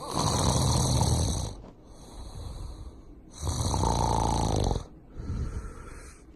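Snoring: two loud, long snores about three and a half seconds apart, the second with a fluttering rattle, each followed by a quieter breath.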